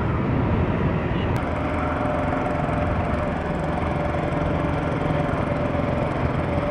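Mahindra Gusto scooter's small single-cylinder engine running steadily at cruising speed, with road and wind noise from riding.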